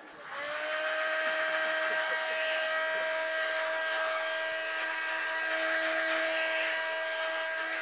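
Corded electric heat gun running: its fan motor spins up with a slight rise in pitch into a steady whine over rushing air, then cuts off near the end.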